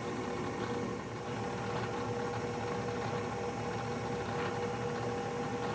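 CNC router spindle running steadily with a constant whine, a #1 center drill inscribing a very shallow line into aluminum.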